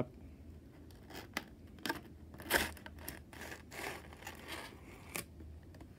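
A thick cardboard box being opened by hand: the lid and flaps scrape and rustle, with several short sharp clicks and crinkles.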